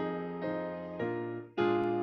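Electric keyboard playing a hymn tune in held chords, a new chord about every half second, with a short break between phrases about one and a half seconds in.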